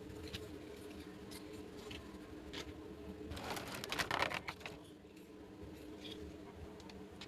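Small plastic toy pieces being handled: a few light clicks and taps, with a louder burst of rustling and clicking about three and a half seconds in, over a faint steady hum.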